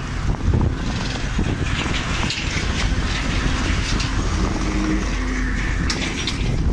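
A motorcycle riding at speed on an open road: wind buffeting the microphone over steady engine and tyre noise.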